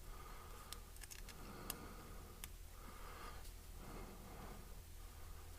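Quiet room tone with a few faint, sharp clicks in the first two and a half seconds and soft handling rustle after.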